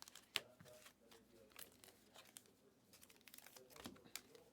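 Faint crinkling and rustling as trading cards and their foil packs are handled, with a couple of sharp clicks.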